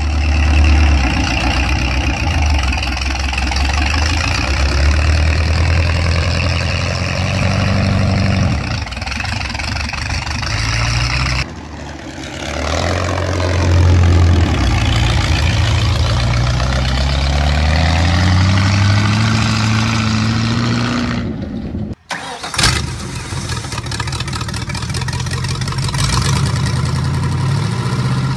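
V8 engines swapped into small vintage tractors, in three short clips. The first runs and is revved, the second revs up with a steadily rising pitch for several seconds, and the third cranks and fires about three-quarters of the way through, then idles.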